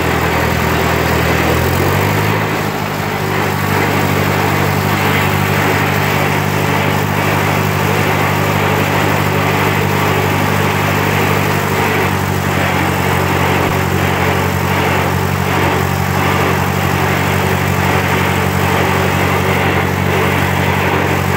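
Cockshutt 30 tractor under way in low range, third gear: the engine runs loud and steady along with the whine of its double-reduction bull-gear rear end. The engine speed rises a little about two seconds in, then holds.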